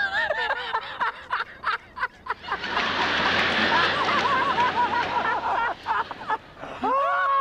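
Studio audience laughing. The laughter swells about two and a half seconds in and dies away around six seconds, after a sketch punchline.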